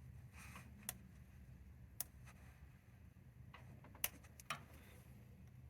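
A few sharp, light clicks and faint scraping as a pick works the old, hardened oil pump gasket loose, over a low steady hum; the loudest click comes about four seconds in.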